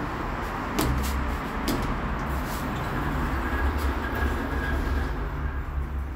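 Lift car doors of a 2002 KleeMann lift sliding shut, with several clicks and knocks over a steady low rumble.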